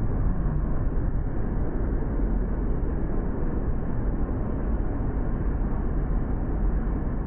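Steady, loud noise of a jet aircraft in flight, heaviest in the low end, with no change in pitch.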